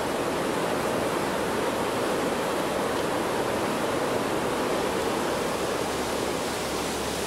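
Creek water rushing steadily through a small concrete dam's outlet and churning below it, a constant even rush of white water.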